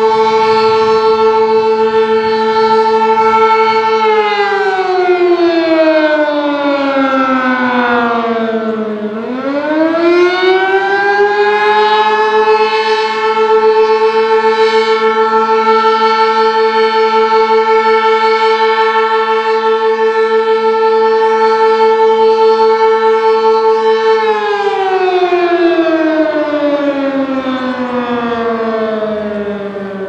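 Sentry 16V1T-B electromechanical outdoor warning siren sounding the attack signal, a loud wail. A steady high tone winds down over about five seconds, climbs back up, and holds for about ten seconds. It starts winding down again in the last few seconds.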